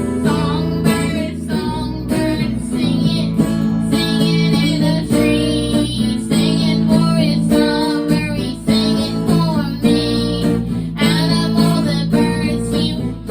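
Live music: an acoustic guitar strummed under a singing voice.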